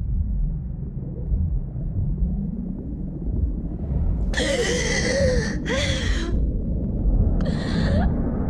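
A woman gasps twice in quick succession about halfway through, and once more, more briefly, near the end, over a low steady rumble.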